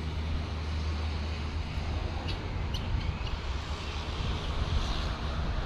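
Steady low rumble of distant road traffic, with a few faint ticks.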